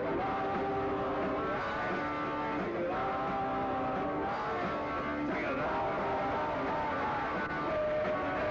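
Live rock band playing with electric guitars, a singer's voice held on long notes over the band.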